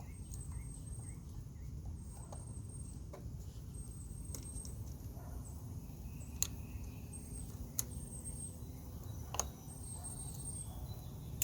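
A bird calling in the background: short, thin, high chirps repeating about once a second, with a pause in the middle. A few sharp clicks stand out over a low steady rumble.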